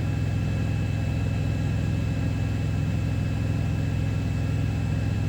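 Steady low mechanical hum with a faint, steady high whine above it.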